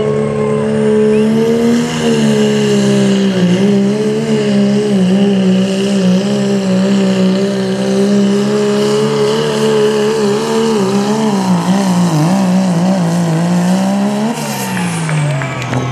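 Second-generation Dodge Ram's Cummins turbo-diesel under full throttle pulling a sled, a loud steady drone with a faint high whine above it, its pitch wavering as the load changes. About fourteen seconds in the engine note falls sharply as the throttle comes off at the end of the pull.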